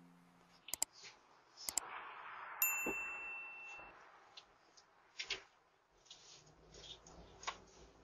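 Faint scattered clicks and rattles as an empty stroller is grabbed and handled, with a single high ding about two and a half seconds in that rings for about a second.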